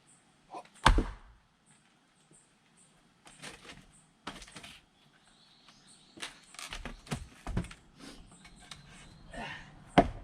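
Axe splitting firewood: a heavy, sharp strike about a second in and another near the end, with lighter knocks and clatter of wood in between. Faint, short, high chirps repeat in the background.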